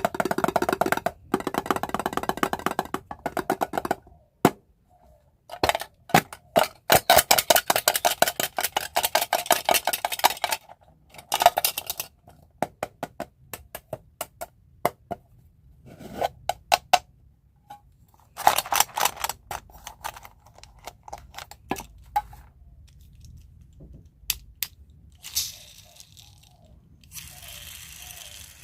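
Small hard candies pouring and clattering together in repeated bursts of rapid clicks, with short pauses between; a softer rustle near the end.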